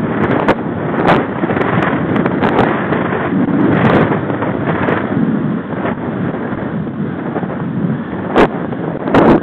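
Wind buffeting the microphone of a camera mounted on a moving mountain bike, with bike and road rumble underneath. A few sharp knocks break through it, the loudest about eight seconds in as the bike rolls onto a bridge deck.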